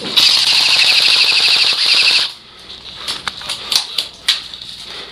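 Airsoft rifle firing one long full-auto burst of about two seconds that cuts off suddenly, followed by scattered light clicks and knocks.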